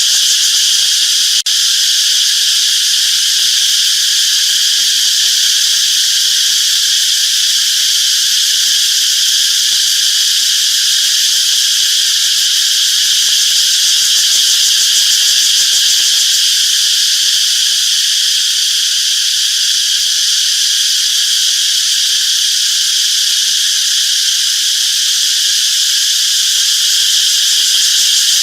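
Cicadas singing: a loud, steady, high-pitched buzzing chorus that does not let up.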